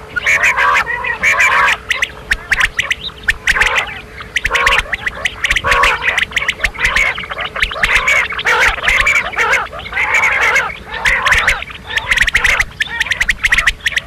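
Quail calling: a dense, continuous chatter of rapid, overlapping calls mixed with many sharp clicks, as from several birds at once, over a faint steady hum.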